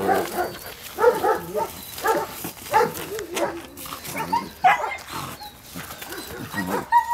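Two three-month-old Belgian Malinois puppies vocalizing in play as they tug at a toy, with short pitched yaps and growls coming about once a second.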